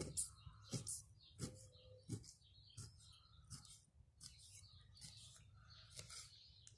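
Kitchen knife scoring a crucian carp's scaled back on a wooden cutting board: a faint, regular series of short crisp scratching cuts through skin and scales, some with a light knock of the blade on the board, about one cut every two-thirds of a second.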